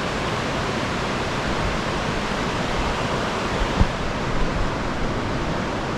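Steady, loud rush of river water pouring over rocks, with one brief low thump about four seconds in.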